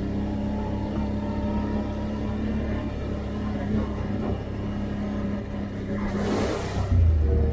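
Can-Am Outlander 850 ATV's V-twin engine running steadily while riding. A brief rush of noise comes about six seconds in, and the engine grows louder near the end.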